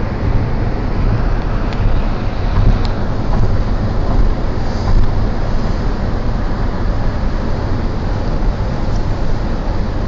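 Steady road and engine noise heard inside a vehicle's cabin while cruising at motorway speed, with a heavy low rumble.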